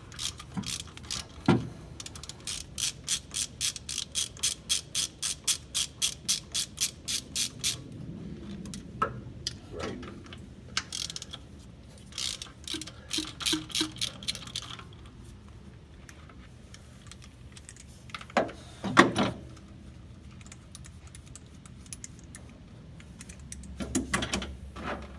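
Half-inch socket ratchet clicking at about four clicks a second as the water neck bolts on a Ford flathead V8 are backed out, in two runs with a pause between. A sharp knock comes later.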